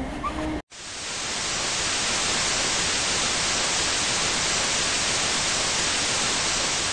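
Steady, even hiss of TV-style static noise, used as an intro sound effect. It comes in after a brief cut to silence, rising over about half a second.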